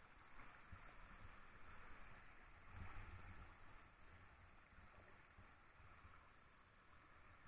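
Faint, muffled sloshing of socked feet wading slowly through shallow stream water, a little louder about three seconds in.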